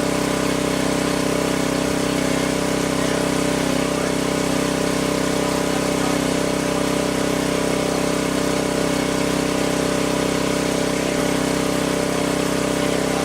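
Gas-engine pressure washer running steadily with a constant, unchanging engine drone.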